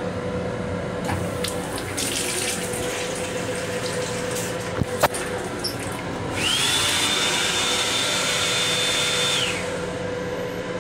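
Restroom sink faucet in an M7 railcar run twice: a short hiss of water about two seconds in, then a louder three-second run carrying a steady high whine that rises at the start and drops at the end. A constant low hum from the railcar sits underneath.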